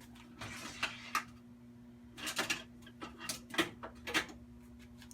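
Hand tools and small parts being handled on a workbench: a handful of sharp clicks and short clattering knocks, with a brief rustle just under a second in.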